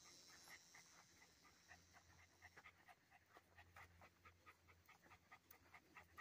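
A dog panting faintly and steadily, about three to four breaths a second.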